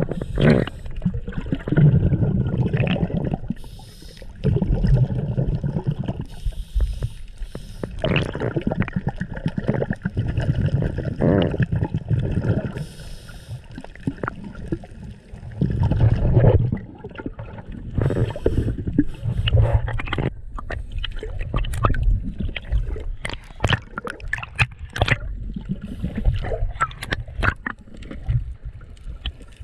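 Underwater sound of scuba breathing through a regulator: bubbling exhalations every couple of seconds, with short hissing inhalations between some of them. In the last third there are many sharp clicks and crackles.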